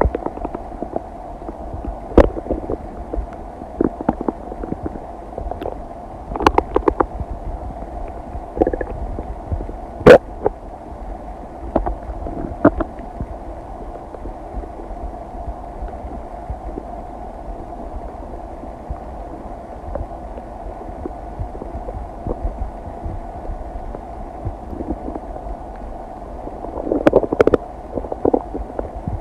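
A human stomach and intestines digesting food: a steady low hum with scattered gurgles and sharp pops. The loudest pop comes about ten seconds in, and there is a busier run of gurgling near the end.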